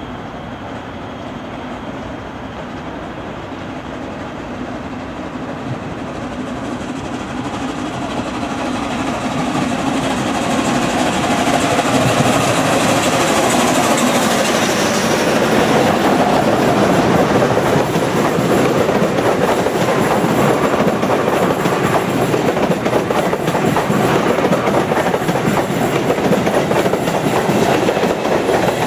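ČSD 498.022 'Albatros' steam locomotive and its passenger train approaching and passing close by, growing steadily louder over the first twelve seconds or so. The coaches then roll past with a steady clickety-clack of wheels on the rails.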